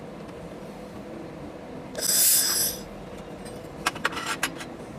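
Handheld fiber laser welder firing a short tack weld on a sheet-metal corner joint: a loud hiss lasting under a second about two seconds in. Near the end, a quick run of light metal clicks as the workpiece is handled on the steel bench, over a steady faint hum.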